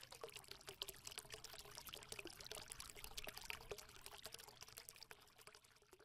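Faint, dense crackling made of many tiny clicks, with a faint steady hum underneath: a sound effect laid under an animated channel logo.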